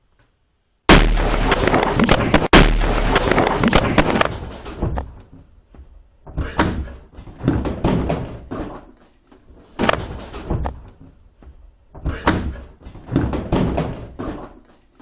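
A Korsar-12 firecracker exploding inside a refrigerator: a sudden, very loud bang about a second in, with loud noise that dies away over about three seconds. A series of shorter loud bursts follows.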